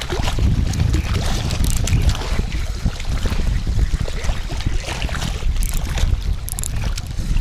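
Wind buffeting the microphone in a steady, loud rumble. A few faint clicks near the end come from hands working a spinning reel.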